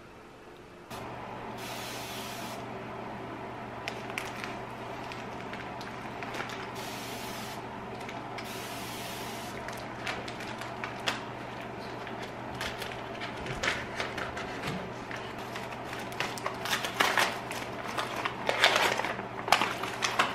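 A parcel's plastic and paper wrapping being torn and unwrapped by hand, over a steady low hum. There are a few short hissing rips in the first half, then crinkling and rustling that grows busier and loudest near the end.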